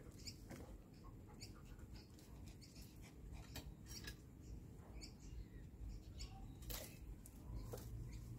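Faint, scattered small clicks and scuffs as a beagle sniffs out a hidden treat and paws at it on patio paving, over a low steady background hum.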